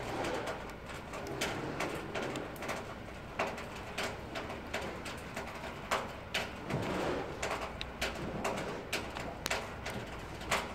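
Pigeons cooing in low calls, clearest about two-thirds of the way through, with scattered sharp clicks and ticks throughout.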